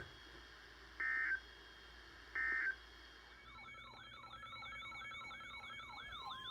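Two short bursts of Emergency Alert System (SAME) data tones on a NOAA Weather Radio broadcast, the end-of-message code after a warning, about a second and a half apart. From about halfway in, a siren-like wailing tone sweeping up and down about three times a second.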